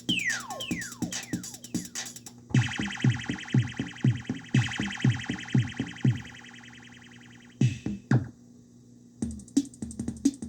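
Electronic music from a Korg Electribe groovebox and keyboard, with distorted, effected tones. It opens with falling, zapping pitch sweeps, then settles into a run of deep, pitch-dropping drum hits about four a second under a buzzing upper layer. The run stops abruptly near the middle, leaving a few scattered hits.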